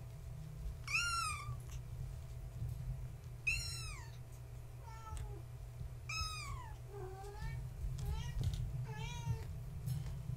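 Young kittens, about four weeks old, meowing. Three loud, high-pitched meows rise and fall in pitch, a couple of seconds apart, followed by several softer, shorter mews, over a steady low hum.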